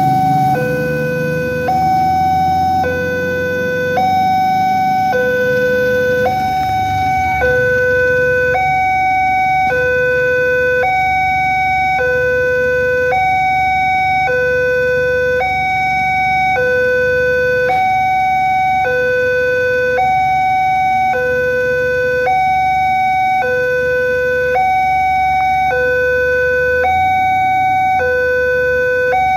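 Railway level-crossing warning alarm sounding its electronic two-tone signal: a lower and a higher tone take turns steadily, about one high-low cycle every two seconds, warning that the barriers are down for an approaching train. Vehicle engines idle low underneath, loudest in the first few seconds.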